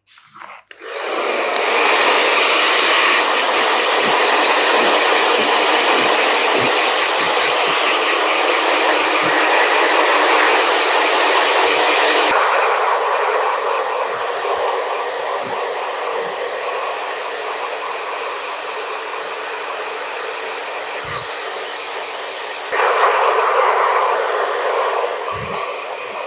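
Hand-held hair dryer blowing on a customer's damp hair, switching on about a second in. About halfway through the sound turns duller with a low steady hum, and near the end it briefly grows louder.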